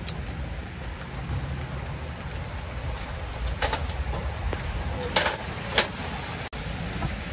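Metal stall parts clattering as they are handled, three sharp knocks from about halfway through, over a steady low rumble.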